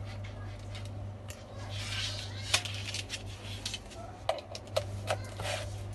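A plastic car-charger plug and its cord being handled and set down on a table: rustling, then several small clicks and knocks, over a steady low hum.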